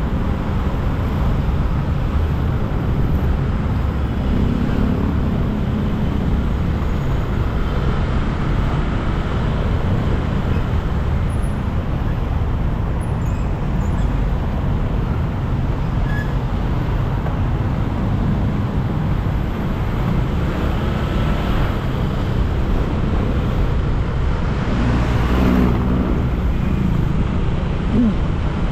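Motorcycle riding in slow, dense city traffic: a steady low rumble of the bike and the road, with cars and other motor scooters running close by. It grows briefly louder near the end.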